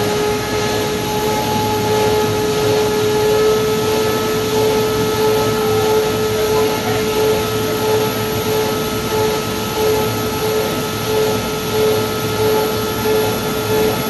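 Corrugated cardboard production line machinery running, the paper web feeding through the splicer: a steady industrial drone with a constant whining tone over it.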